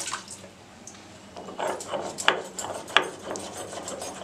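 Kitchenware clattering: sharp clinks and knocks of utensils and a metal bowl, a handful of them in the second half, two louder than the rest.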